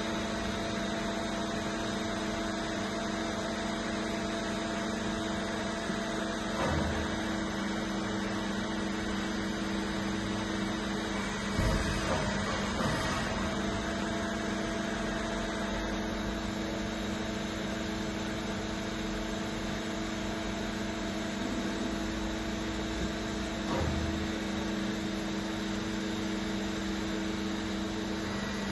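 Trumpf V2300 CNC hydraulic press brake running, its pump and motor giving a steady hum, with a few short thumps: one about a quarter of the way in, two near the middle and one more late on.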